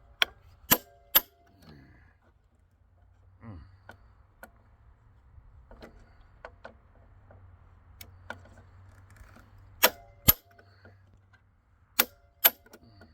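Sharp metal-on-metal hammer blows with a short ring: three in quick succession, then two more pairs later, with light clinks of handled metal between. They are struck against a tool on a seized, very tight screw in a large circuit breaker to try to break it loose.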